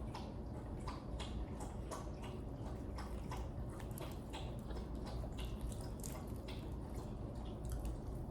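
Close-up eating sounds: irregular soft wet clicks and squishes of chewing, several a second, over a low steady hum.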